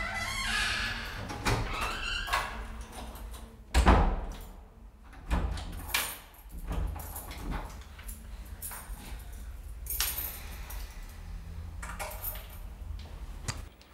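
A key working a front-door lock, the wooden door opening and shutting with a heavy thud about four seconds in, then knocks and keys jangling as they are hung on a wall rack.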